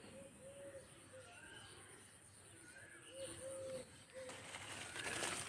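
A bird calling faintly in low notes, two phrases of three notes about three seconds apart. A rustling noise rises near the end.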